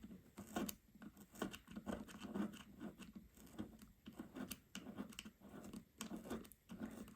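Old screen adhesive tape being scraped and peeled off the edge of an iPhone 12's frame: a run of short, irregular scratches and picks, a couple a second.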